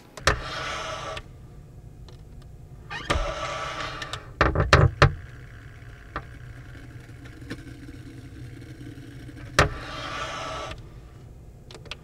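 Vacuum cleaner switched on with a click just after the start, then running with a low hum. Three surges of louder rushing noise each last about a second, and a quick run of sharp clacks comes around five seconds in.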